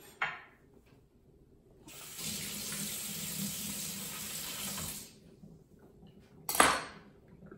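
Kitchen sink faucet running steadily for about three seconds, then shut off. A short click comes just after the start, and a sharp knock about six and a half seconds in is the loudest sound.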